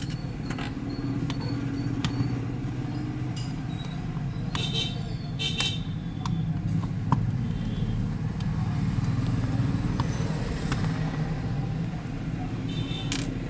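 Scattered small clicks and light metallic clinks of tools working on a Mac mini's casing, over a steady low rumble.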